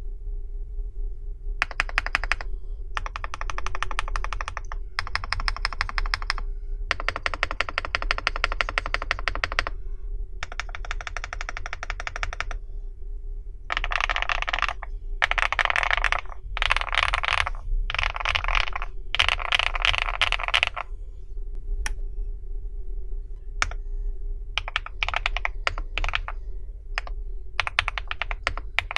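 Typing on a Meteor80 custom mechanical keyboard: bursts of very rapid keystrokes, each lasting a few seconds, with short pauses between them. The bursts are loudest midway, and near the end the typing breaks into scattered single key presses.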